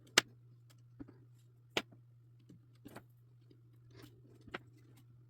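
Sharp clicks and light scraping as jumper wires are pushed into a solderless breadboard: four distinct clicks spread over the seconds, the first the loudest, over a faint steady hum.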